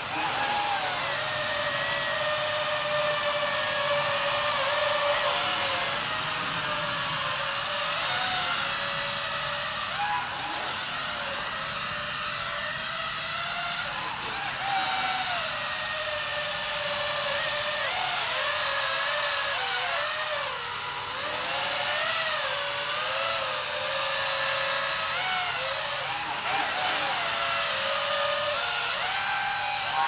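Small electric motors and propellers of a toy remote-control quadcopter whining steadily in flight. The pitch wavers up and down as the throttle changes while it manoeuvres.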